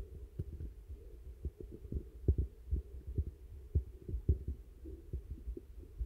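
Wind buffeting the microphone: a low rumble with irregular muffled thumps.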